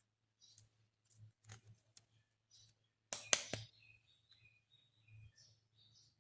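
Light handling noises from toys and plastic packaging: scattered soft clicks and rustles, with a quick run of three sharp plastic clicks about three seconds in, then faint short squeaks.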